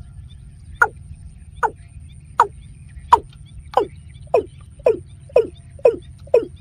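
Watercock calling: a series of short notes, each sliding down in pitch, about ten of them, coming faster toward the end, over a steady low hum.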